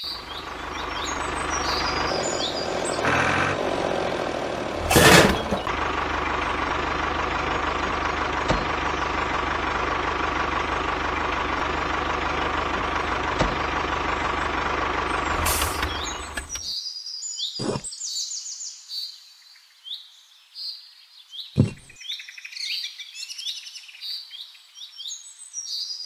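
A miniature toy tractor's small motor runs steadily with a faint whine, with one loud knock about five seconds in, then stops about sixteen seconds in. Birds chirp throughout, alone after the motor stops, with two short clicks.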